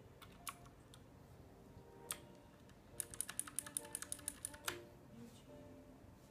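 Ducky One mechanical keyboard with clicky blue switches being typed on: two single keystrokes, then a quick burst of about ten clicky keypresses a second starting about three seconds in, ending on a louder stroke. Faint background music underneath.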